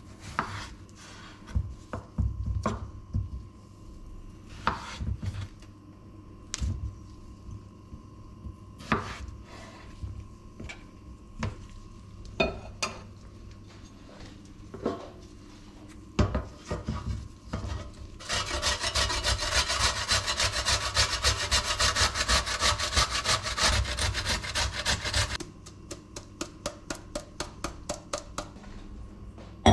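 A knife peeling a raw potato over a wooden cutting board, with scattered short scrapes and taps. About eighteen seconds in comes a loud run of fast rasping strokes lasting some seven seconds. Then the potato is grated on a stainless steel box grater at about four strokes a second.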